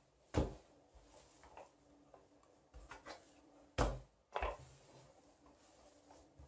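Plastic rolling pin knocking on the pastry mat as it is lifted and set back down while rolling out dough: a few short knocks, the loudest about half a second in and about four seconds in.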